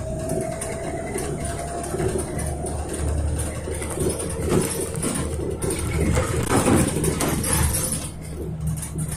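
Bus engine and road noise heard from inside the moving bus: a steady low rumble with occasional knocks and rattles.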